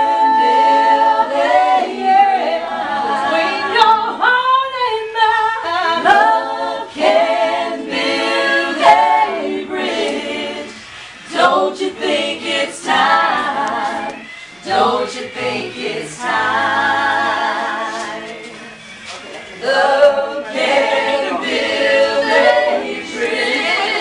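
A group of voices singing a religious song without instruments, in long held notes that waver in pitch, with a few brief pauses between phrases.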